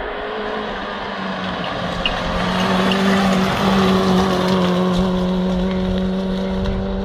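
Rally car's engine held at high revs at a near-steady pitch as it drives past on a gravel stage, loudest about three to four seconds in as it goes by, then easing off slightly as it pulls away.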